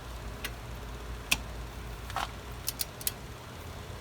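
Click-type torque wrench being ratcheted on a hub bearing bolt: a handful of short, sharp metallic clicks at uneven spacing, the loudest about a second and a half in.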